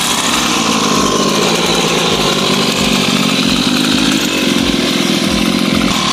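Small 49cc two-stroke mini dirt bike engine running steadily as the bike pulls away and rides off.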